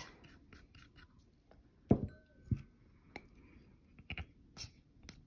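A few scattered knocks and clicks of small spice containers being handled and tapped as dry seasonings are added to a plastic mixing bowl; the loudest is a single knock about two seconds in.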